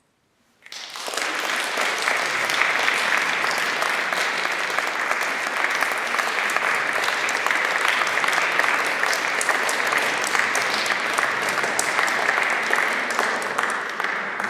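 Audience applauding, the clapping starting suddenly just under a second in and carrying on steadily.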